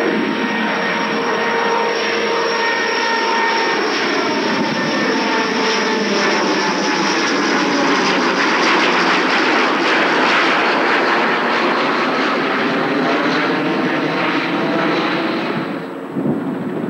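Vickers Viscount's four Rolls-Royce Dart turboprop engines passing overhead at climb power: a steady, loud engine noise with whining tones that slide down in pitch as the aircraft goes over, loudest about halfway through. The sound changes abruptly near the end.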